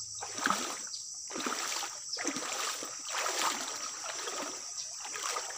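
Footsteps splashing and squelching through shallow creek water and mud, a soft wet step about once a second.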